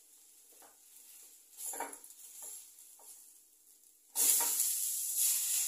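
Rava dosa batter cooking in a hot non-stick kadhai: a few soft spatula scrapes as it is loosened, then about four seconds in it is flipped and a loud, steady sizzle starts suddenly as the raw side hits the hot pan.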